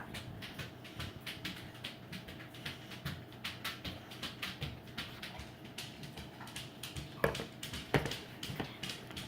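A spoon stirring the sticky glue and shaving-cream slime mixture in a bowl as Tide laundry detergent is worked in to activate it. The stirring makes a rapid run of small clicks and squelches, with two louder clicks about seven and eight seconds in.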